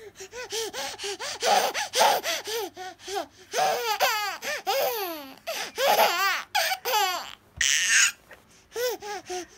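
A baby laughing in a run of short, high-pitched, rhythmic giggles, with a longer gliding squeal of laughter in the middle and a breathy gasp about eight seconds in.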